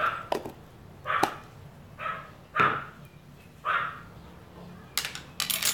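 A dog barking about five times, in short separate barks spread over a few seconds. Near the end comes a brief scraping, hissing noise.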